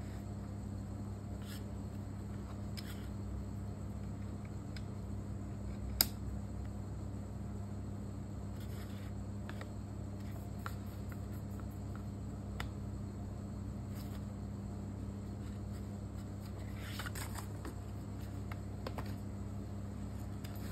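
Quiet handling sounds of a laptop power adapter's cable and a paper card being moved about on an aluminium laptop lid: small ticks and brief rustles, with one sharp click about six seconds in, over a steady low hum.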